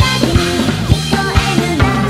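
Drum kit played hard in a rock performance with a band: sharp kick and snare hits about twice a second under pitched instrument lines that bend and shift.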